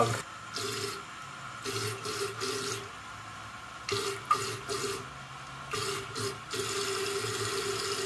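Water hissing and running into a toilet tank through a new Korky fill valve as the tank refills. The hiss rises and drops several times as the valve's flow adjuster is turned between a quieter, reduced flow and full flow.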